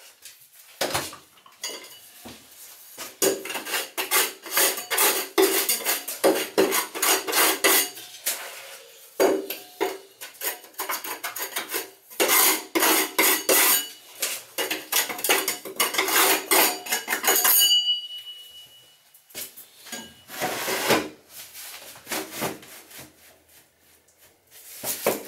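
Hand sanding with a sheet of sandpaper: quick back-and-forth rubbing strokes in several spells with short breaks, stopping for a few seconds near the end before a last few strokes.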